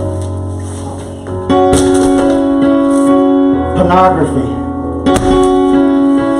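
Background keyboard music: long held piano-like chords, changing to a new chord about a second and a half in and again near the end.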